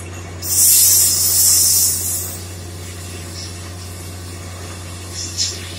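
Borewell drilling rig running with a steady low drone from its engine and air compressor. About half a second in, a loud hiss of compressed air blasts out for about two seconds, then dies away. A couple of short hissing spurts follow near the end.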